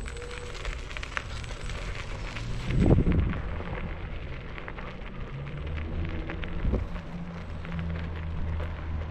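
Scooter wheels rolling over a loose gravel-and-dirt surface: a continuous crackling crunch of small stones with rattling, a single thump about three seconds in as the scooter goes over a bump, and a low rumble building in the second half.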